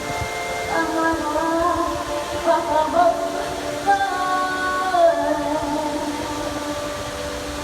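Music with a woman singing, her voice holding long notes and sliding between them.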